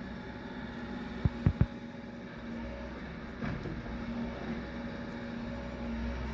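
An engine, likely from the demolition machinery, runs steadily at a low rumble. Three sharp knocks come close together about a second and a half in, with a weaker knock about two seconds later.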